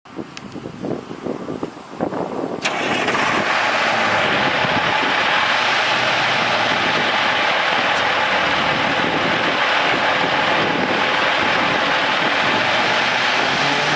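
Cummins L10 turbo diesel engine cranking unevenly for about two and a half seconds, then catching and running steadily and loudly.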